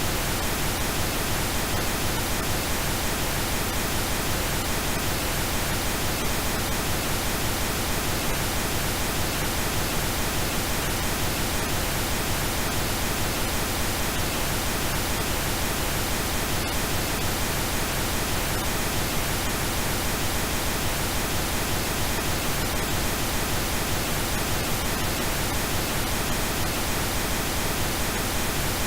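Steady synthesized pink noise: an even, unchanging hiss.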